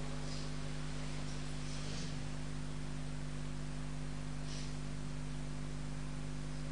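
Steady mains hum with a faint hiss from the prayer room's microphone and sound system, with a few soft clothing rustles as worshippers rise from prostration and stand.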